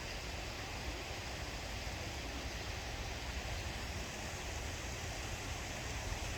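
Steady outdoor background noise: an even hiss with a low, unsteady rumble underneath and no distinct events.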